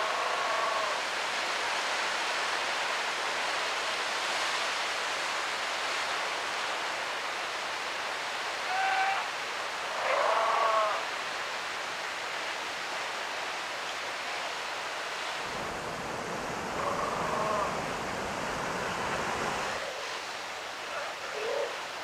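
Steady surf washing over rocks, with about five short bleating calls from a South American sea lion colony rising above it. The loudest call comes a little before the middle.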